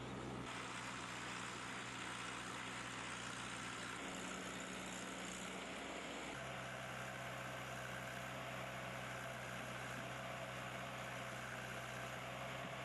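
JCB backhoe loader's diesel engine running steadily, under a constant hiss. Its low hum changes pitch about four seconds in and again about six seconds in.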